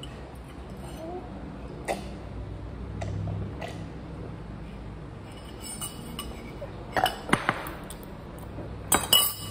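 Spoon and ceramic cereal bowl clinking, with the bowl knocking on a glass tabletop: a single clink about two seconds in, a quick run of sharp clinks about seven seconds in, and another cluster near the end.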